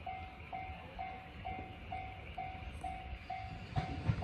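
Japanese level-crossing warning bell ringing, one tone repeating about twice a second. Near the end, a few heavy low knocks and a rising rumble come in from an approaching electric train.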